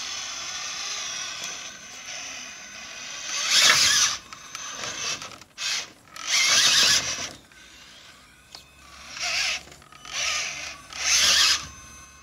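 Radio-controlled rock crawler truck's electric motor and geared drivetrain whining under throttle as it climbs a steep wooden pallet ramp: a steady whine at first, then about six short, loud bursts as power is applied in stabs.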